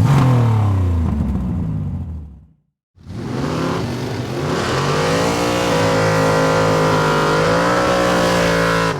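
Car engine revving hard in two abrupt segments: the first falls away over about two seconds, and after a brief gap of silence the second climbs and is held at high revs.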